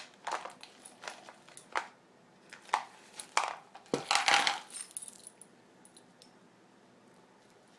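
Small metal hardware, washers and nuts, clinking and rattling as a hand rummages through it: scattered sharp clicks, a louder jingling clatter a little past the middle, then it stops.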